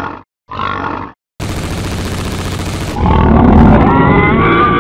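Wild boar grunting twice in short bursts, then about a second and a half of harsh, steady rasping noise, then a louder cry rising in pitch that cuts off suddenly at the end.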